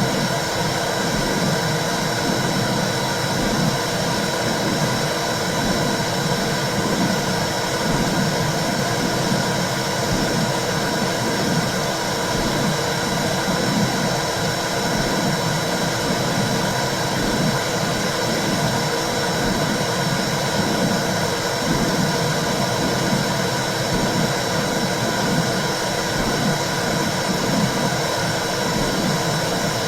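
Womb sound: a steady whooshing noise like blood flow heard inside the uterus, with a low rhythmic pulse about once a second.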